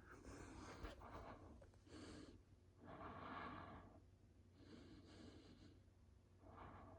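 Near silence: a few faint breaths close to the microphone over a low, steady hum.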